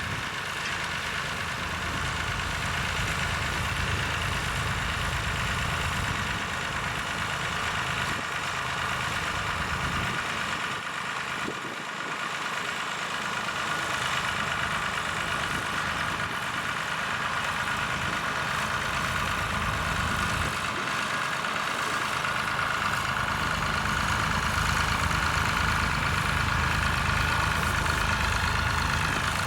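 Tractor engine running steadily under ploughing work; its low rumble drops away briefly twice.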